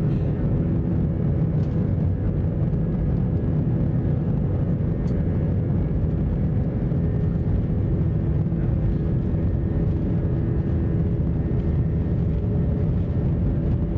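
Steady jet engine and rolling noise heard from inside an Airbus A320 cabin as the airliner moves along the runway: a loud, even low rumble with a few steady hum tones above it.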